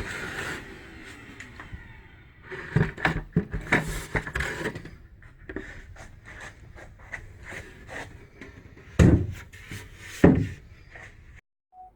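Wooden boards being handled and knocked together, an irregular run of knocks and clatters with two heavier thumps about nine and ten seconds in.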